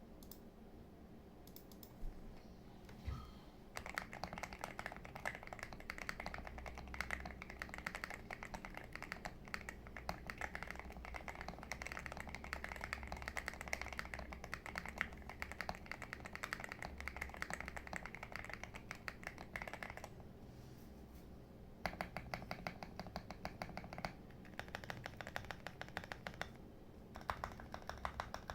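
Rapid typing on a computer keyboard, a fast run of key clicks that pauses briefly about two-thirds of the way through and then resumes in shorter bursts.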